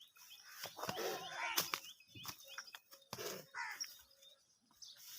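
Small birds chirping over and over, with a few louder wavering calls and some sharp knocks mixed in.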